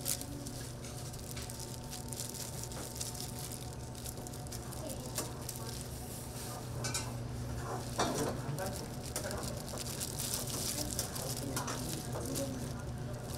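Food preparation at a kitchen counter: scattered light clicks and scrapes of utensils and ingredients being handled, over a steady low hum of kitchen equipment and a faint hiss.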